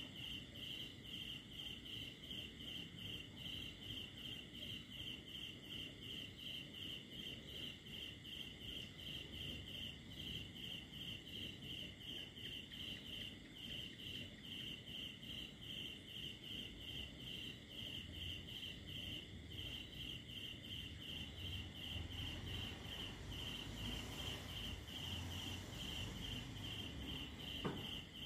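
Cricket chirping in an even, unbroken train of short high pulses, about three a second. A single short click comes near the end.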